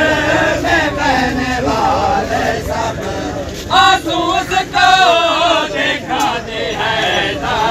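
A group of men chanting together, their voices overlapping, with one louder voice rising over the others in the middle.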